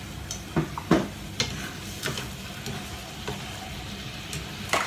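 Salmon and shimeji mushrooms sizzling in a frying pan, with a utensil stirring and scraping against the pan in several sharp taps, the loudest near the end.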